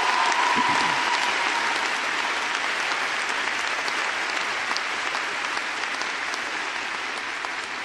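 Audience applauding, steady dense clapping that slowly dies down toward the end, with a cheer heard over it in the first second or so.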